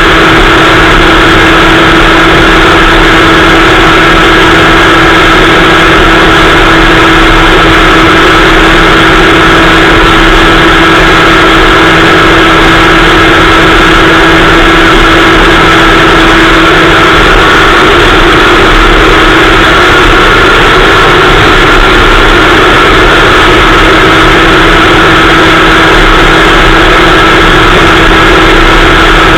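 Kid kart's small two-stroke engine running very loud and close up, holding one steady pitch with no rise or fall.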